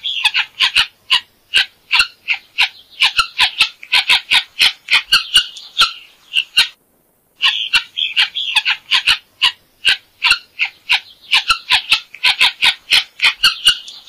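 Helmeted guineafowl calling: a rapid series of short calls, about three a second, broken by a brief pause about halfway.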